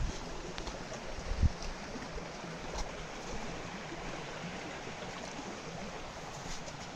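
Steady rushing outdoor noise, like flowing water, with one low thump about one and a half seconds in.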